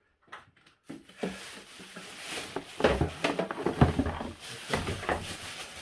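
Rustling and knocking of packaging being handled during unboxing, starting about a second in, with a few sharper knocks.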